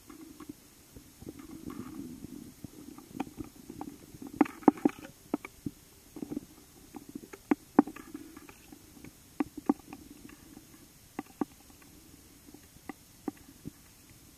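Muffled underwater sound picked up by a submerged camera: a steady low rumble with irregular sharp clicks and taps, the loudest cluster about four to five seconds in.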